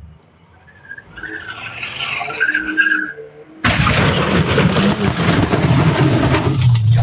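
A car's tyres squeal for a couple of seconds. About three and a half seconds in comes a sudden loud crash as the car smashes through an iron driveway fence and brick pillar, and the noise continues for several seconds.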